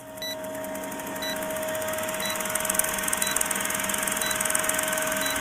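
Electronic intro sound effect: a steady hum with a hiss over it and a short tick about once a second, slowly swelling.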